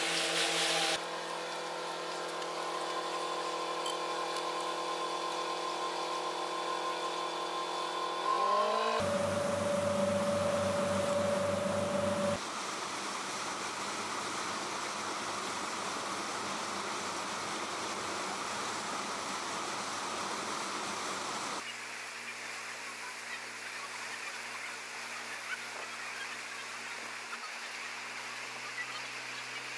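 A tour boat's engine running with a steady drone, over rushing water from the wake. The sound changes abruptly several times. The engine note rises about eight seconds in, and a louder steady hum follows for about three seconds.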